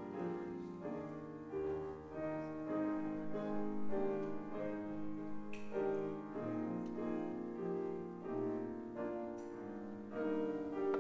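Grand piano playing a melody over held chords, the notes overlapping as they sustain.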